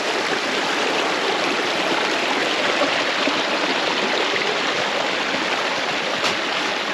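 A small woodland stream running steadily over rocks, heard up close.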